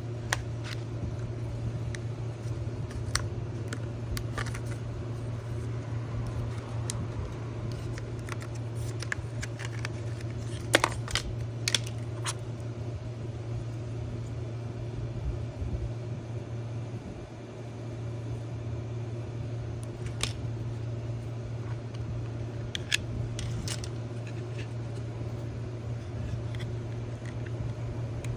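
Scattered light clicks and taps of small hardware being handled, most likely an M.2 NVMe SSD and a phone hub enclosure being fitted together, with a sharper cluster about eleven seconds in. A steady low hum runs underneath.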